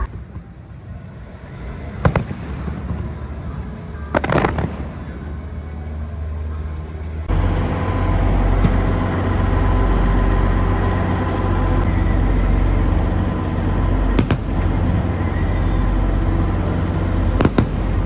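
Fireworks going off: sharp bangs about two seconds in, around four seconds, and twice more near the end. About seven seconds in, a loud, steady low rumble and noise suddenly rise underneath them.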